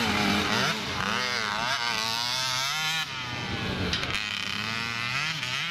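Several small motocross bikes racing, their engines revving, with the pitch rising and falling over and over as the bikes accelerate and back off.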